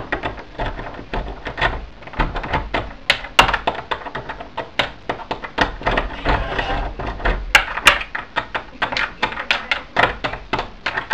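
Brass doorknob being rattled in its door, an irregular run of clicks and knocks, several a second.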